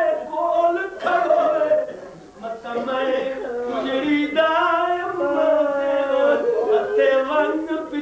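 A man chanting verse in a melodic, sung style with long held notes, pausing briefly about two seconds in.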